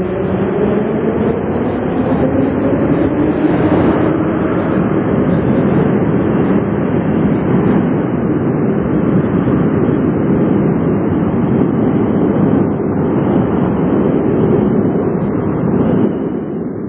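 Moscow metro train running through the station: a loud, steady rumble and rush, with a motor whine that glides in pitch during the first few seconds. The noise drops off near the end.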